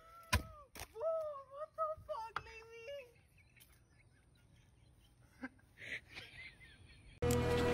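A high voice crying out in drawn-out, wavering wails for about three seconds, with two sharp knocks near the start, then quiet. Music comes in just before the end.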